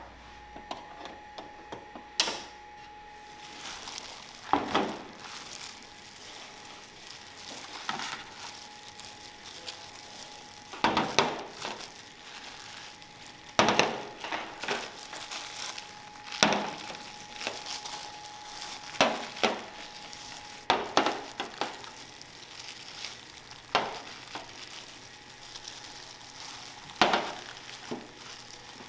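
Handling noise: thin plastic food-service gloves crinkling and plates of food being moved and set down on a stainless-steel counter. Irregular rustles and sharp clacks come every second or few, over a faint steady hum.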